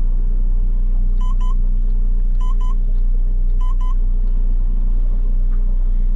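Honda BF150A outboard running in trolling mode, a steady low drone, while the troll-control button beeps as the troll speed is bumped up: three double beeps a little over a second apart. The engine is being stepped up from about 600 RPM toward about 950 RPM.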